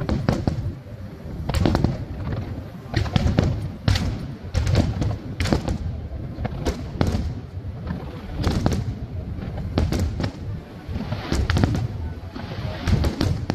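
Aerial firework shells bursting in a large display: a quick, irregular run of bangs, about one or two a second, over a low rumble.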